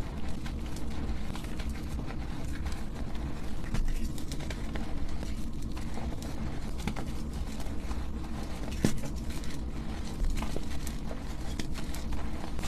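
Blocks of dyed gym chalk being crushed, a continuous crunching and crackling made of many small sharp clicks.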